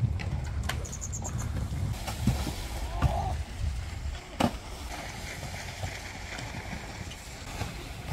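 Wind buffeting the microphone in a gusty low rumble, with a few sharp knocks scattered through. The loudest knock, about four and a half seconds in, comes as a wakeboard rides across a box obstacle. A short, high, rapid chirp sounds about a second in.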